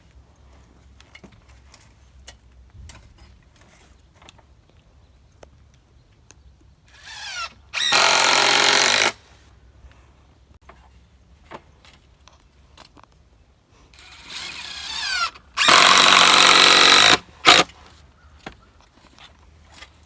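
Cordless drill driving 3-inch screws into rough-sawn pine 2x6 boards, run twice. Each run starts with a rising whine. The first lasts about two seconds, and the second, near the end, about three, followed by a short extra blip.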